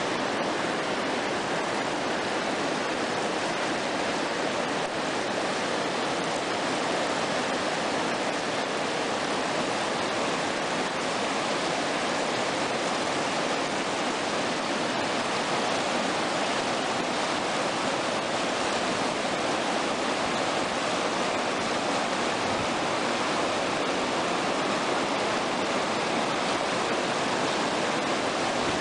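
Whitewater rapids on a wide river, water rushing over and around rocks in a steady, unbroken roar of noise.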